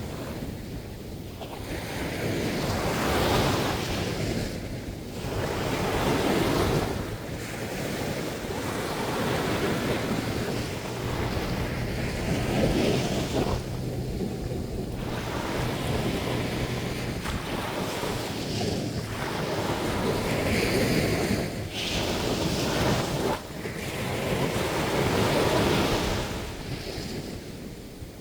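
Sea waves breaking and washing up the beach, the surf swelling and easing again every few seconds.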